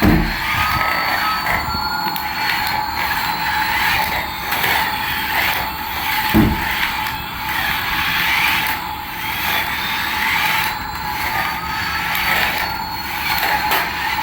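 Battery-powered remote-control toy aircraft running: a steady motor whine with a hiss that swells and fades about once a second, and two short thumps, one at the start and one about six seconds in.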